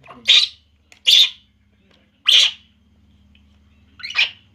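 Baby macaque crying: four short, high-pitched squealing cries, roughly a second apart.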